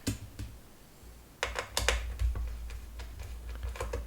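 Irregular clicks and light taps of a screwdriver and small metal and plastic parts being handled while a fan is taken apart, with a cluster of clicks in the middle and a few more near the end, over a low handling rumble.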